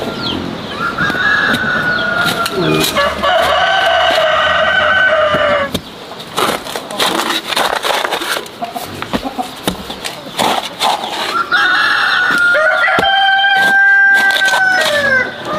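A rooster crowing twice, each a long held call, the first about a second in and the second about twelve seconds in. In between, a steel spade chops and scrapes into damp soil in short strokes.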